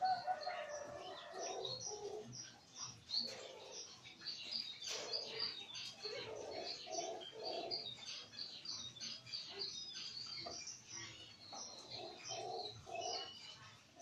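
Caged doves cooing, several low coos coming in short runs, some three in a row, over a steady scatter of high, quick chirps from small birds.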